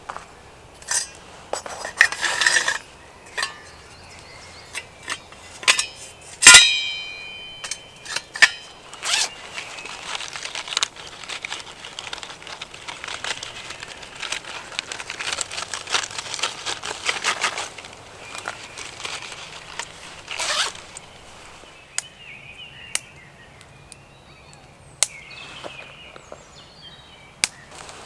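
Handling dry twigs and a small metal wood-burning camp stove: scattered snaps and clicks, one sharp ringing metal clank about six and a half seconds in, and a stretch of dense crackling rustle in the middle.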